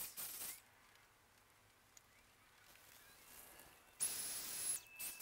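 Handheld electric HVLP paint sprayer spraying a cabinet door: a quiet stretch, then about four seconds in its motor whine and spray hiss start abruptly and run for under a second.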